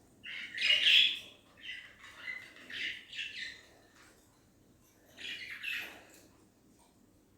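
Pet budgerigars chirping and chattering in three short spells. The first spell, about a second in, is the loudest; the others come around two to three seconds in and again near six seconds.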